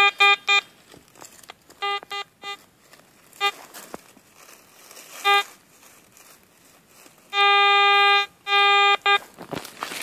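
Garrett AT Gold metal detector's audio tone signalling a buried metal target: clusters of short beeps at one steady pitch over the first five seconds or so, then two long unbroken tones near the end, the first about a second long.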